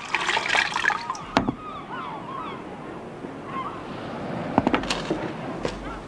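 Tea poured from a china teapot into a mug, a trickling, gurgling pour in the first few seconds, with a few sharp clinks of crockery.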